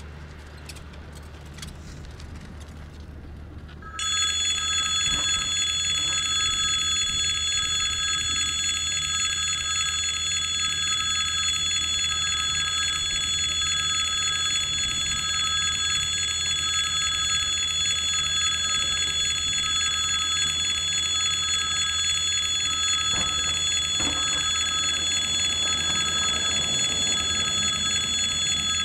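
Russian level-crossing warning bell starts about four seconds in and rings steadily and loudly, signalling that a train is approaching the crossing.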